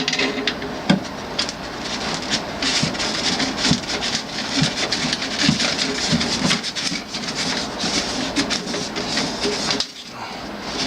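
Continuous metallic rattling and clicking as a water cooler's copper tubing is cut with snips and its parts are worked loose, with occasional low knocks; the noise drops off briefly near the end.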